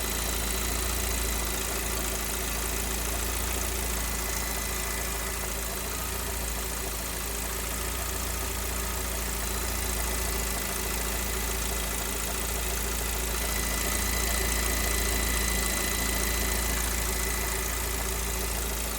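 Lada VAZ-21127 1.6-litre 16-valve four-cylinder engine running steadily when hot, with a suspicious knock in it. The owner wonders whether it comes from the cylinder-head defect reported on engines built at the end of 2020.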